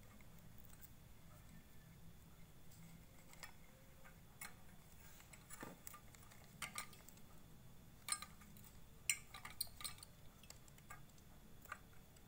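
Faint, scattered clicks and light clinks as hands handle a small electric motor's wires and its metal fan impeller, coming thickest about six to ten seconds in.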